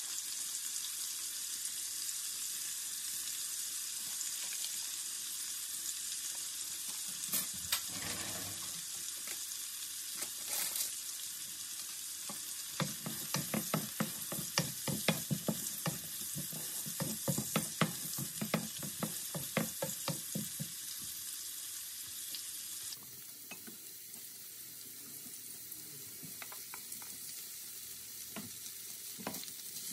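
Peas and diced carrots sizzling in oil and liquid in a nonstick frying pan. In the middle a wooden spoon stirs them, with a quick run of scraping taps on the pan. About two-thirds of the way through the sizzle suddenly drops to a quieter level.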